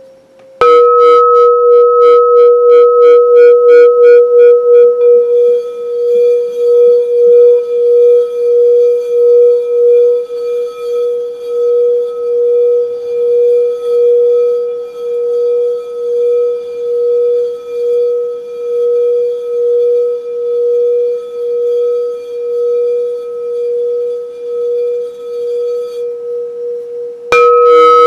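Frosted crystal singing bowl, the 528 Hz lepidolite bowl, struck with a mallet and left ringing in one steady tone with a slow pulsing beat. It is struck again near the end.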